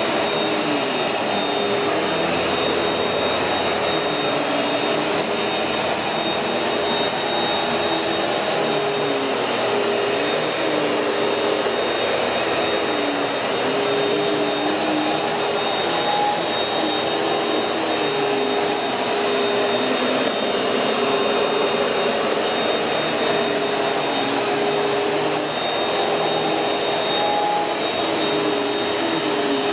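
Panasonic MC-UG471 bagged upright vacuum cleaner running steadily. Its motor whine wavers slightly in pitch over the steady rush of air.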